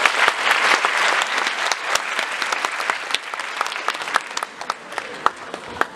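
Auditorium audience applauding: dense clapping at first that thins to scattered single claps near the end.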